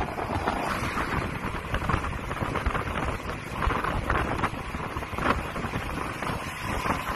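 Wind buffeting the microphone on a moving motorbike, a rough rushing that rises and falls, with engine and road noise from the bike and the surrounding traffic beneath it.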